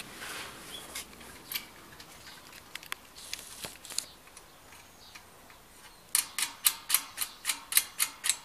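Spanner tightening the bolt on a satellite dish's LNB arm: a few light metal clicks, then from about six seconds in a quick, even run of sharp metallic clicks, about four a second.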